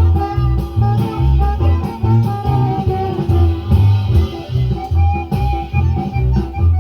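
Instrumental music with guitar and a steady bass beat, played back from a cassette tape on a vintage National Panasonic RS-612US deck.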